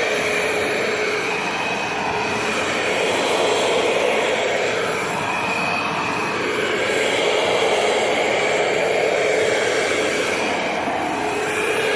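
Bagless vacuum cleaner running steadily: a motor whine over rushing air that swells and dips slightly.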